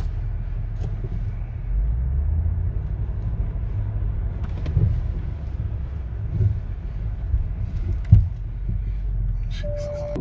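Low rumble inside a Range Rover Sport's cabin as it crawls over a rough, rocky forest trail, with several knocks from the body and suspension over bumps, the loudest a little after eight seconds in. A short beep sounds near the end.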